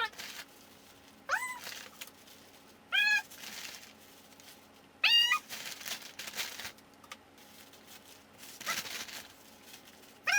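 A dog whining in short, high-pitched cries that bend in pitch, four or five of them spaced a second or two apart with a longer gap near the end. Softer rustling sounds fall between the cries.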